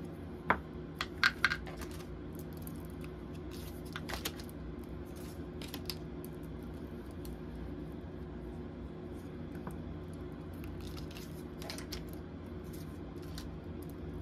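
Tarot cards being handled and set down: a quick cluster of sharp clicks and taps in the first second and a half, then scattered lighter taps and rustles around four, six and twelve seconds, over a steady low hum.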